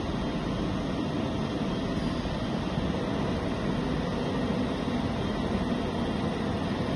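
Mobile self-loading concrete mixer running: a steady, even mechanical drone that holds level throughout, with no revving or changes.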